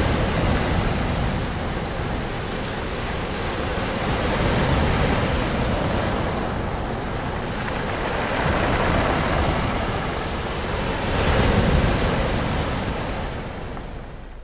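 Ocean waves breaking and washing in, swelling and ebbing in slow surges about every three to four seconds, the last one dying away near the end.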